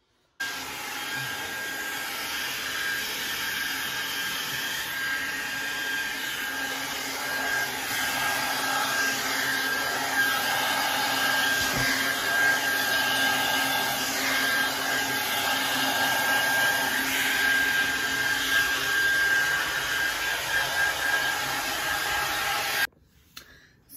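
Hand-held hair dryer blowing steadily, a rushing airflow with a thin, high, steady motor whine. It switches on just after the start and cuts off abruptly about a second before the end.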